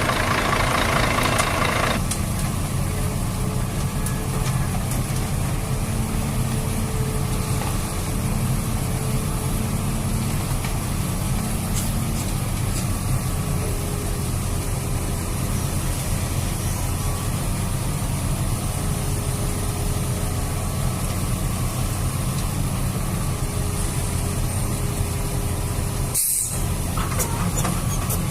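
Truck engine running steadily at idle, a low even rumble. The higher hiss drops away about two seconds in, and the sound cuts out for a moment near the end.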